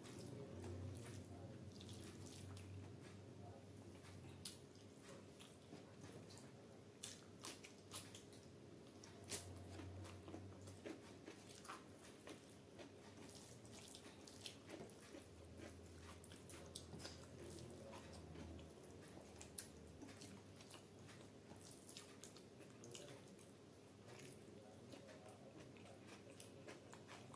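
Faint close-miked eating sounds: wet chewing and many small sharp mouth and finger clicks from someone eating rice mixed with curry by hand, with soft squishing as fingers work the food in a steel plate.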